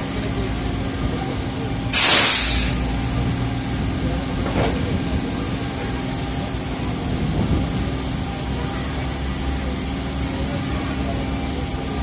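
Indian Railways passenger coaches rolling past close by on the adjacent track, a steady rumble with a constant low hum. About two seconds in, a loud, sharp hiss of air that fades within a second, and a much fainter hiss a couple of seconds later.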